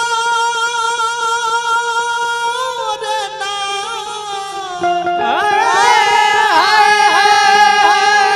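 Man singing a Bhojpuri nirgun, a devotional song of parting and death, in long held notes with a slight waver over instrumental accompaniment. About five seconds in the voice swoops up, grows louder and holds an ornamented note.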